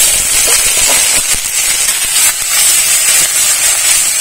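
Onion paste frying in hot mustard oil in an aluminium wok: a loud, steady sizzle.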